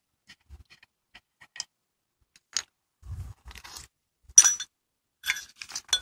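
Handling noise from a steel clutch pedal bracket and an open-end wrench on a plastic bag: light clicks, a rustle and thump of plastic, and metallic clinks, the loudest a sharp ringing clink about four and a half seconds in.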